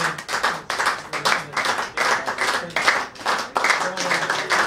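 A small group of people applauding, many hands clapping together in a dense, steady patter, with a few brief voices among it.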